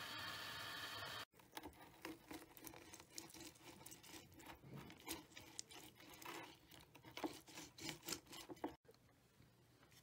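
A steady hiss for about the first second. After it cuts off, a lemon is squeezed by hand, giving irregular crackling and soft squishing for several seconds as the juice runs into a bowl. It stops suddenly near the end.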